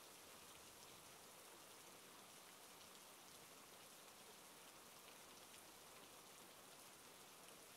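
Faint, steady rain: an even hiss of falling rain with fine ticks of drops.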